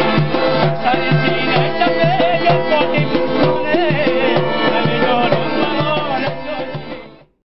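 Background music with a steady drum pulse under a winding melody, fading out over the last second.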